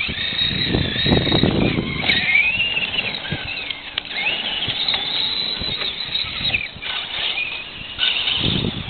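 Radio-controlled monster truck's motor and gears whining, the pitch rising and falling as the throttle is worked, with rough low rushing noise about a second in and again near the end.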